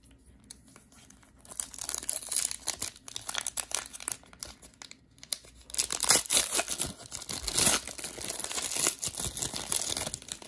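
Foil trading-card pack being torn open by hand, its wrapper crinkling and crackling. The sound starts about a second and a half in and is loudest in the second half as the wrapper is torn and pulled off the cards.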